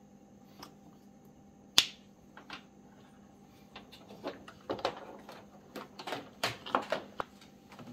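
Handling of an electrical plug and extension cord: one sharp plastic click about two seconds in, then a run of lighter clicks and rustles as the cord is moved about. A faint steady hum runs underneath.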